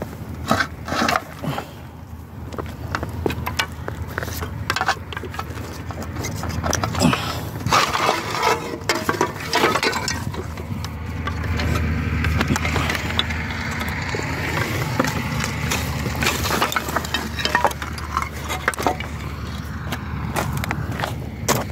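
Scattered knocks, clicks and scraping of broken concrete, wood and debris underfoot and being handled while picking through rubble, over a steady low rumble.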